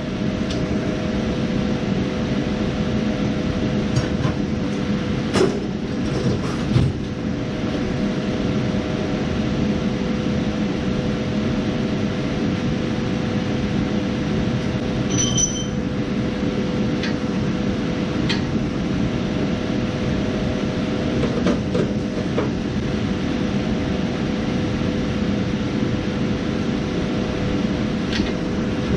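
An electric motor running steadily with a constant hum, with a few light clicks and clinks over it.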